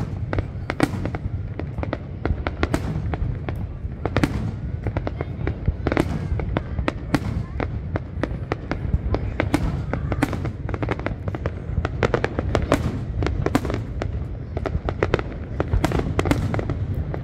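Fireworks display: shells bursting in rapid, irregular succession, several bangs a second at times, over a constant low rumble.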